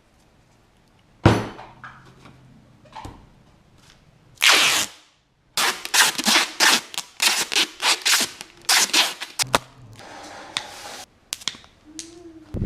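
A single sharp shot about a second in as a nail gun drives a nail into a fully charged LiPo battery, then a short burst of hiss. From about halfway a rapid, irregular run of crackling pops and hissing follows as the punctured battery vents.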